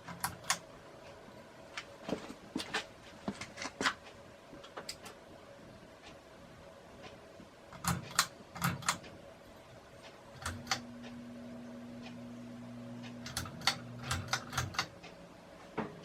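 Hampton Bay Carousel II ceiling fan running on low with a faint steady hum, amid irregular clicks and ticks. A deeper hum joins about ten seconds in and stops a few seconds later.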